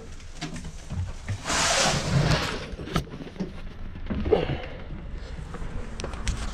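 Handling noise inside a box truck as someone moves among plastic storage totes: a rustling scrape for about a second, a sharp click, then scattered knocks and shuffling.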